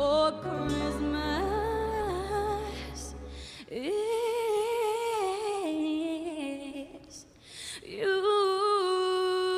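A woman singing live into a microphone: slow, drawn-out melismatic notes with vibrato over a low held accompaniment note that drops away after about three and a half seconds. After a brief breath near the end she starts a new long held note.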